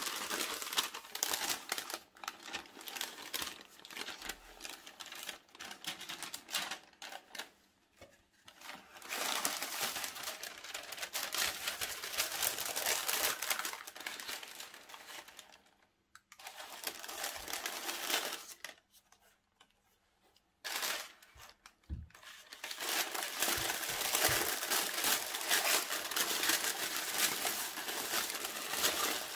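Tissue paper crinkling and rustling as it is unfolded and pulled from around a pair of sneakers in a shoebox, in several long stretches with short pauses between.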